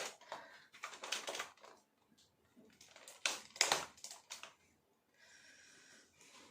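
Clicks and knocks of a large plastic action figure, the Haslab Galactus, being handled and its joints posed, with the loudest cluster about three to four seconds in. A brief faint hiss follows near the end.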